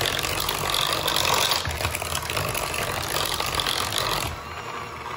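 Electric hand mixer running, its beaters whirring through a thick butter, shortening and sugar filling in a ceramic bowl. The sound drops and grows quieter about four seconds in.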